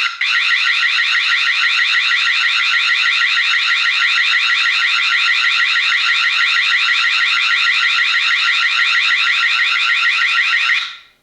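Anti-theft alarm siren of a TP-Link Tapo D230S1 battery video doorbell, set off by taking the doorbell off its mount. It is a loud, fast-repeating rising sweep that stops near the end as the alarm is disabled.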